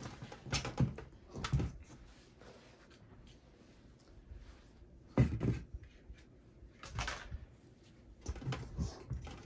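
Scattered knocks and clunks from the steel chassis of a Lenovo ThinkCentre M900 desktop being turned and handled on a tabletop, the loudest about five seconds in.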